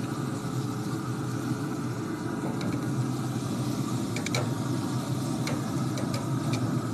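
Metal tongs clicking lightly against a pellet grill's steel grates several times as steaks are turned, over a steady low rumbling hum.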